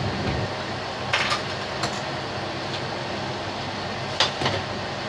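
Chicken pieces boiling in water in a metal wok: a steady bubbling hiss with a few sharp pops and clicks, a pair about a second in and another pair near the end.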